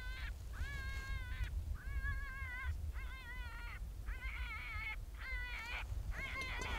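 A predator call playing a string of whining distress cries, about one a second and each under a second long, the later ones wavering more in pitch. Wind rumbles on the microphone underneath.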